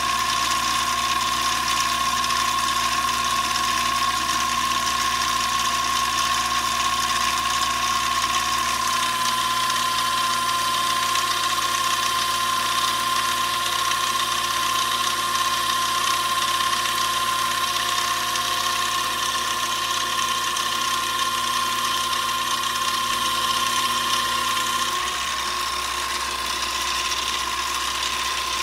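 Mini lathe running with its steel headstock gears, a steady mechanical whine with gear noise, while the carriage is fed slowly by the lead screw.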